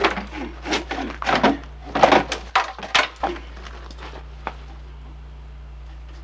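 A quick run of knocks and clatter for about three seconds, then quieter, over a steady low hum.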